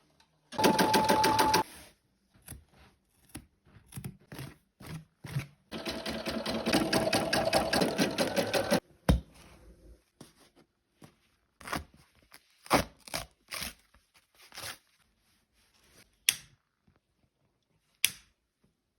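Embroidery machine stitching a patch on hooped fabric in short runs, a rapid steady needle rhythm for about a second near the start and about three seconds in the middle. Between and after the runs come separate sharp clicks and knocks.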